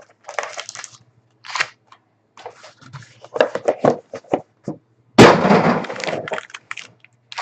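Card-box packaging being handled and torn open: scattered clicks and crinkles, then a loud sudden crack about five seconds in that runs into a second of rustling.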